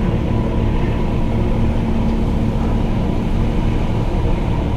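Steady low drone of marine engines from the ship and the tugboat working alongside it, with a constant hum and no change in pitch.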